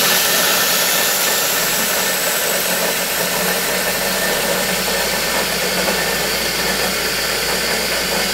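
Small press-top blender running steadily with a loud motor noise and a steady hum, grinding dry croutons into breadcrumbs.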